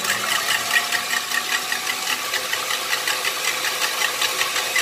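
KitchenAid Artisan stand mixer running at high speed, its wire whisk beating eggs in the steel bowl: a steady motor hum and whir with a fast, regular ticking, about five ticks a second.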